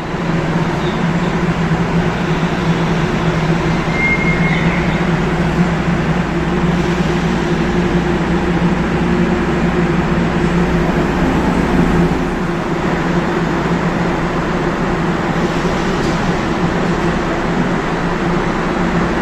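Osaka Monorail train sounding a steady low hum over a rumble, with no change in pitch.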